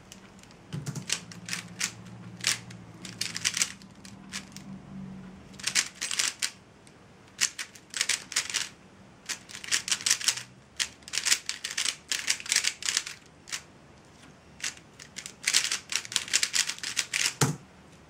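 Dayan Zhanchi 3x3 speedcube being turned fast in a timed solve: rapid bursts of plastic clicking and clacking with short pauses between them. There is a single thump near the end.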